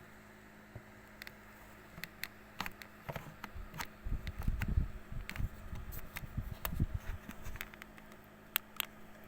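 Scattered light clicks and taps, with a cluster of low thuds about four to seven and a half seconds in, over a faint steady hum.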